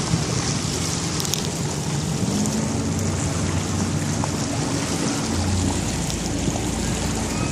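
Motorboat towing a banana boat, its engine running steadily under way with water rushing and splashing past the hull.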